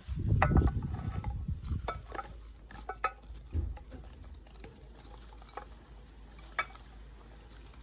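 Diced apple pieces being tipped into a bowl of chopped salad vegetables, a soft rustling patter for the first two seconds, followed by scattered light clinks and taps of utensils against dishes.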